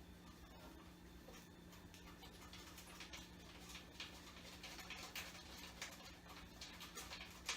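Near silence: a low steady hum with faint scattered clicks and rustles that grow busier after a couple of seconds.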